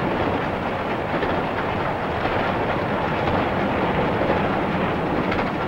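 Steam locomotive running at speed, heard from the cab: a steady, dense rumble and rush of noise with no breaks.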